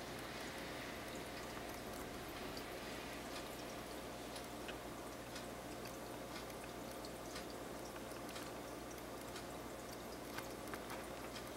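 Aquarium water sounds: a soft steady watery hiss with many small scattered drips and pops, over a faint steady hum.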